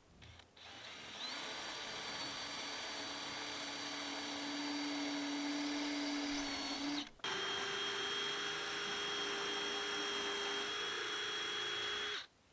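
Hand-held electric power tool running at a steady whine for about seven seconds, stopping briefly, then running again at a slightly higher pitch for about five seconds.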